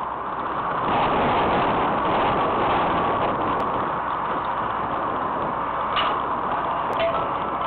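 Steady outdoor noise at a baseball field, with a sharp knock about six seconds in as the pitch reaches the swinging batter and a second sharp click about a second later.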